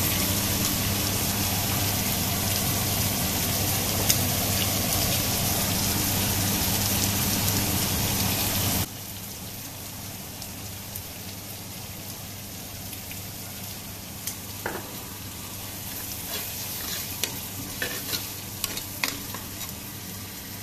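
Masala frying and sizzling in oil in a pressure cooker pot. About 9 seconds in it drops suddenly to a quieter sizzle, and in the second half a slotted metal ladle clicks and scrapes against the pot as yogurt is stirred into the masala.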